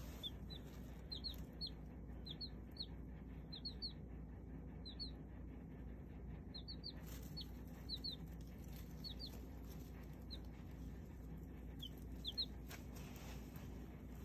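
Baby chicks peeping: short, high cheeps, often two or three in quick succession, coming in scattered runs with brief pauses between them.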